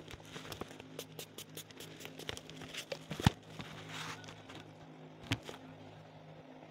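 Fingers rubbing and pressing plastic bubble wrap around a parcel, giving irregular crinkles and small clicks. There is a sharp snap about three seconds in and a smaller one a couple of seconds later.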